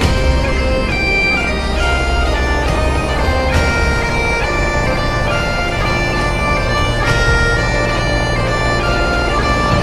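Bagpipe music: a melody of held notes over a steady low drone.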